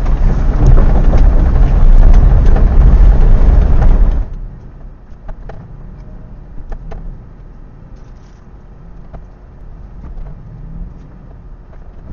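Inside a Datsun Go Plus's cabin, recorded by a dashcam's built-in microphone while driving: a loud, low rumble of the car running over a rough gravel lane. About four seconds in it cuts off abruptly to a much quieter, muffled hum with a few faint ticks.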